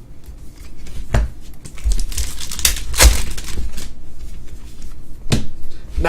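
Trading-card pack wrappers crinkling and tearing as packs are ripped open and handled, with three sharp clicks.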